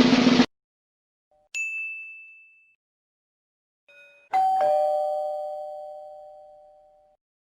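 A drum roll cuts off, then a single high ding rings and fades. About three seconds later a two-note ding-dong doorbell chime sounds, high then lower, and rings out over nearly three seconds.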